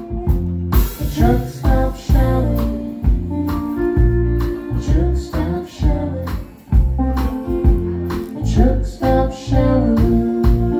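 Live band playing a song: electric guitar, bass guitar and drums with a steady beat, and a woman singing.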